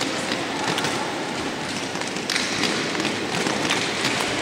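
Roller-ski wheels rolling over the hard rink floor: a steady rolling rumble and hiss with scattered light clicks.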